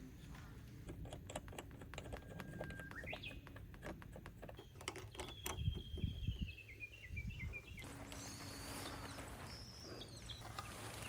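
Birds calling: a few short whistles, then a long stepped falling trill and more whistled phrases in the second half. Scattered light clicks run through the first half, and a couple of low thumps come near the middle.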